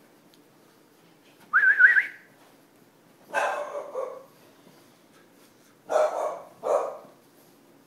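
Nine-week-old English Bulldog puppies: a short, high, wavering whine, then a few short barks, the last two close together.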